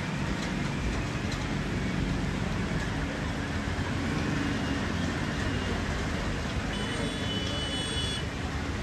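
Steady roadside traffic noise with a vehicle engine running, over an even hiss. About seven seconds in, a brief high-pitched tone sounds for about a second.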